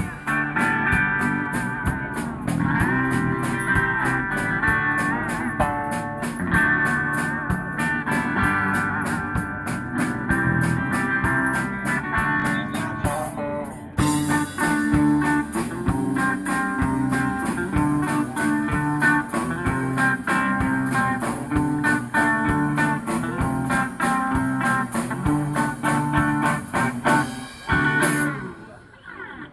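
Street band playing through amplifiers: two electric guitars over a drum kit keeping a steady beat. The music stops shortly before the end.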